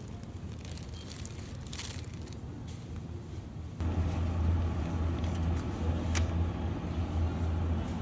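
Steady low hum of a supermarket's refrigerated display case, starting abruptly about four seconds in. Before it there is fainter, even store noise with a few light clicks.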